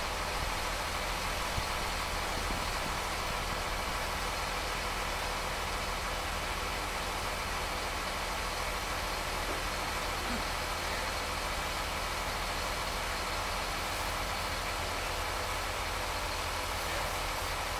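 A machine engine on the pile-driving site runs at a steady idle with a constant low hum. No hammer blows are heard.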